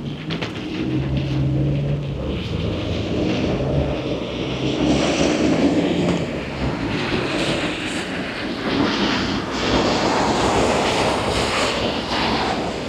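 Street traffic: a motor vehicle's engine hums low in the first few seconds, under a continuing wash of passing-vehicle noise.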